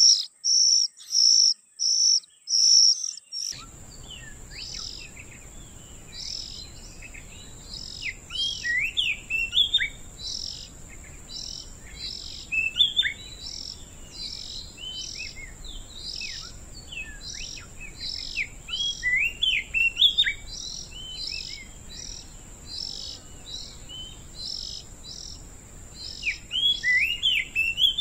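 Oriental magpie-robins calling: a steady run of short, high chirps about twice a second, broken now and then by quick clusters of swooping whistled notes. A constant high, thin drone like an insect runs beneath, and about three and a half seconds in the recording changes and a background hiss comes up.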